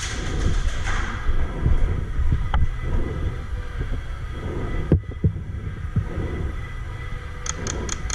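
Low, uneven rumble of wind and movement on the camera microphone, with a few sharp clicks and a quick run of short clicks near the end.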